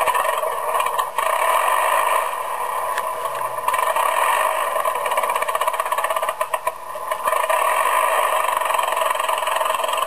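Piston aircraft engine of a WWI Albatros fighter running with a rapid, pulsing beat. It cuts in abruptly and dips briefly a few times as it runs.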